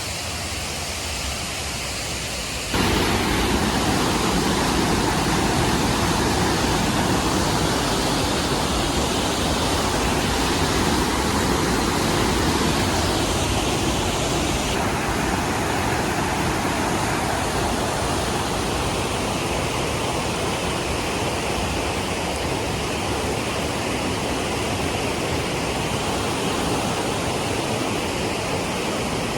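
A mountain waterfall's water rushing in a steady, loud wash of noise, which gets abruptly louder about three seconds in.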